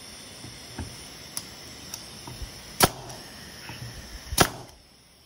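Pneumatic nail gun firing twice, about a second and a half apart, driving nails into scrap wood. Lighter clicks and taps come before the shots.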